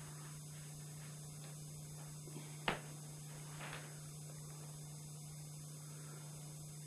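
Steady electrical mains hum in the recording, with one short click about halfway through and a faint soft rustle a second later.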